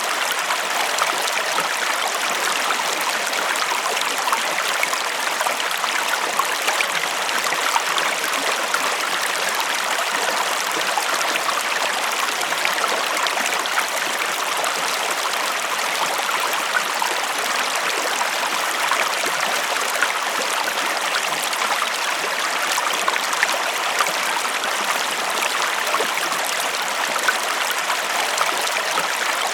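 Small river stream flowing steadily, a constant rushing of water with fine splashing and gurgling detail.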